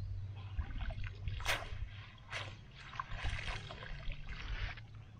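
Water splashing and dripping as a wet cast net is pulled up out of a river and lifted, in a run of irregular splashes and trickles.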